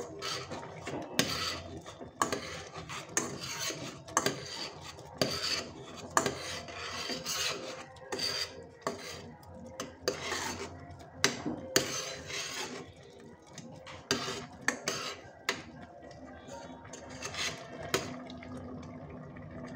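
Metal ladle scraping and clinking against the sides and bottom of a metal pot, stirring grated carrots simmering in milk, in irregular strokes.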